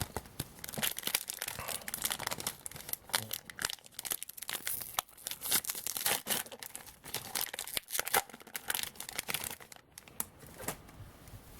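A pack of trading cards being torn open, its wrapper crinkling, with irregular crackles and rustles throughout.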